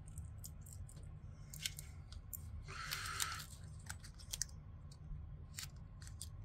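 Small handling sounds of fingers turning a masking-tape-wrapped die-cast car body: scattered light clicks and ticks, with a brief rustle of tape about three seconds in.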